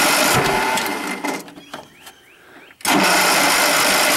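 Electric starter cranking a cold Tecumseh OHV 17.5 HP single-cylinder engine in two bursts, the second starting about three seconds in, without the engine catching. The starter sounds rough, and the owner suspects it is failing.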